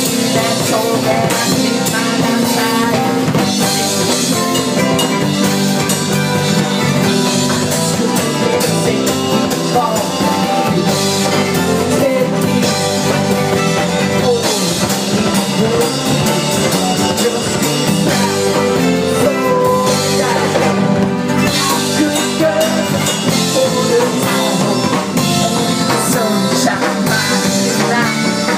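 Live band playing: a singer with an acoustic-electric guitar, an electric bass and a drum kit, with singing over a steady beat.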